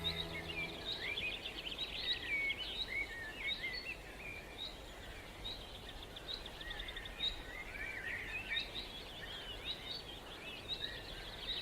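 Several birds chirping and trilling over a faint steady outdoor background hiss.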